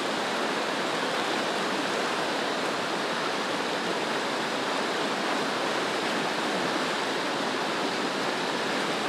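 Shallow, fast creek rushing steadily over rocks and riffles.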